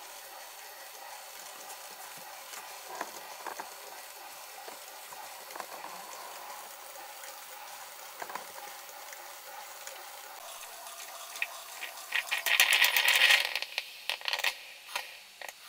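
Philips Cucina drip coffee maker brewing: a steady low gurgle with scattered clicks and crackles, then a loud burst of gurgling and hissing about twelve seconds in, lasting a second or two and breaking into sputters near the end.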